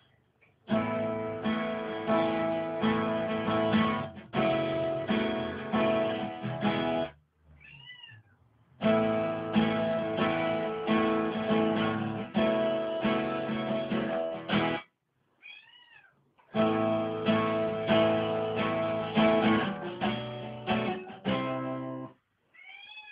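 Guitar music plays in three stretches of about six seconds. In each break a domestic cat gives a single meow that rises and falls, three meows in all.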